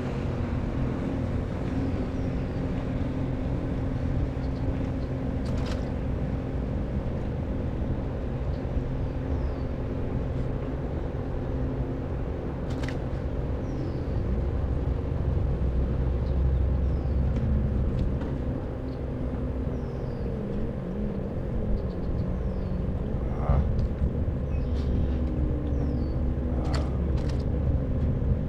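A steady low engine-like hum runs throughout, with a few short high chirps and faint clicks over it.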